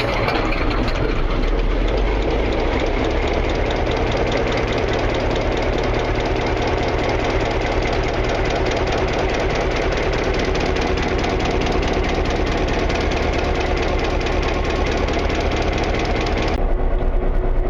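EMD 567 two-stroke diesel in a GP-10 locomotive catching just after the start and then running steadily at idle with an even firing rhythm: its first run after two cylinder liners, pistons and connecting rods were replaced.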